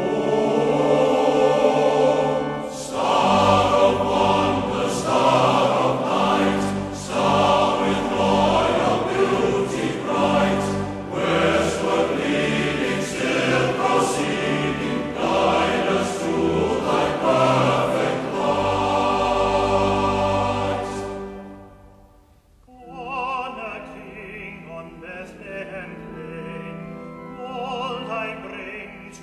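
Recorded choral and orchestral music, a Christmas carol, sung full-voiced with orchestra. About three-quarters of the way through it breaks off briefly, then quieter orchestral music with some singing resumes.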